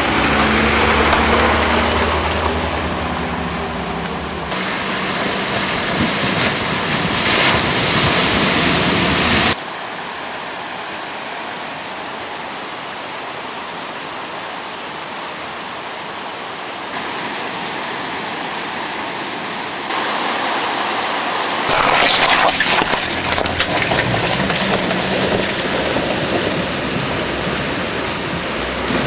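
Outdoor clips that change abruptly several times: a Nissan Patrol 4x4's engine running, then a steady rush of water, and from about 22 seconds in the engine again with water splashing as the Patrol drives through a rocky river.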